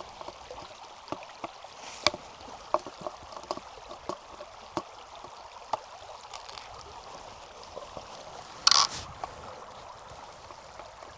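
Steady rush of a stream, with scattered light clicks and knocks and one short harsh scraping noise near the end.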